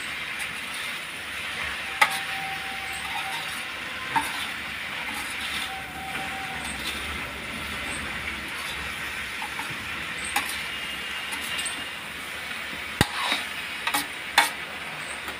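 Diced raw pumpkin sizzling in a kadhai while a perforated metal spatula stirs and tosses it. The spatula scrapes the pan with sharp metal clinks, several close together near the end.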